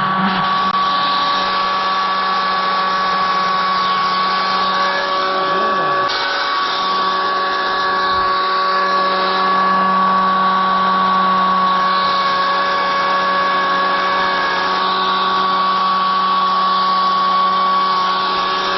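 Battery-electric chainsaw running at a steady full-speed whine, with no change in pitch, as it cuts through a pumpkin. Right at the end the trigger is let go and the motor starts to wind down.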